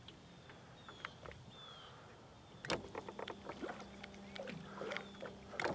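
Light handling noise in a fishing boat. After a quiet start, a sharp knock about halfway through is followed by a run of clicks and light knocks from fishing tackle and the boat, over a low steady hum.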